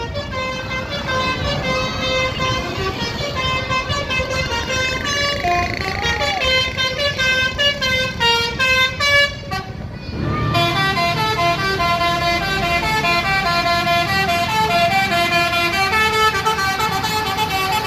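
Bus basuri (telolet) horn playing a quick melody of stepped musical notes over the rumble of traffic. About ten seconds in the tune breaks off briefly, then a louder melody starts with the engine rumble closer.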